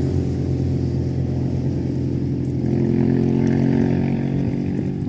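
An engine running steadily, its note shifting slightly about halfway through.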